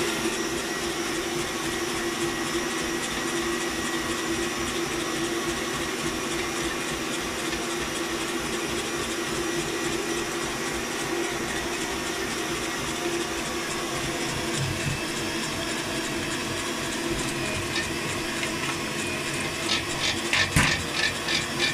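Kenwood Chef stand mixer running its mincer attachment with a steady electric whir and hum while onion is fed through to push the leftover meat out of the mincer. A run of quick clicks comes near the end.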